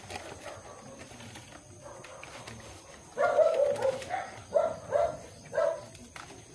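An animal calling: one longer call, falling slightly, about three seconds in, then three short calls over the next two seconds.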